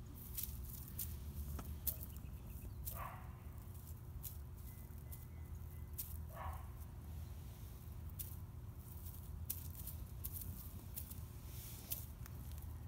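Outdoor ambience with a steady low rumble and scattered light ticks. Two short animal calls come a few seconds apart, about 3 and 6.5 seconds in.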